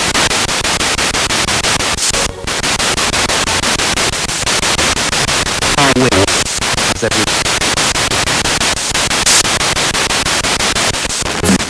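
Spirit box radio sweeping rapidly through stations: loud hiss of static chopped into a fast, regular ticking as it jumps from channel to channel. Brief snatches of voice break through about halfway and again near the end.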